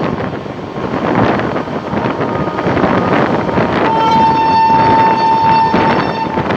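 Locomotive horn of a moving express train sounding one long, steady blast of about two and a half seconds, starting about four seconds in, over the continuous rumble of the train running.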